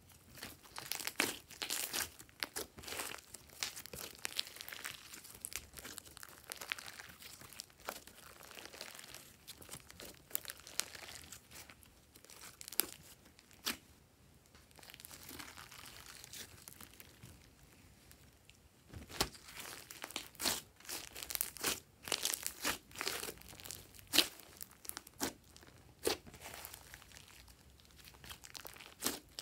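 Hands squishing, stretching and folding a large batch of glossy slime: sticky crackling and popping clicks in clusters, with a quieter stretch about halfway through.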